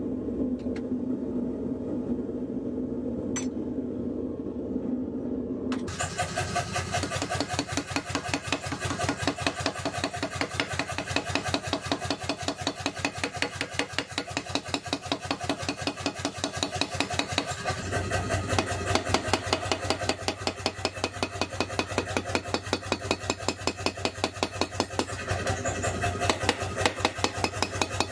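Forge running with a steady low hum for the first six seconds. Then a power hammer pounds the hot steel cleaver blank with rapid, even blows, several a second, that carry on to the end, with a low machine hum under them in the second half.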